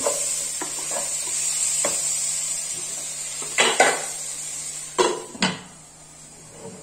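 Chopped tomatoes, onions and green chillies sizzling in oil in a cooking pot while a wooden spatula stirs and scrapes them, knocking against the pot several times. Near the end there are two sharp clinks as a glass lid goes on, and then the sizzle is quieter.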